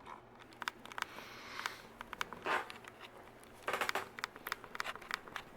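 Faint irregular clicks and short rustles, busiest a little before the middle, over a faint steady low hum.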